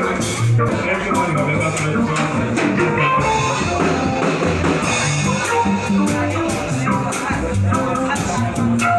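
Upbeat church band music with guitar, bass and drum kit keeping a steady beat, with some singing.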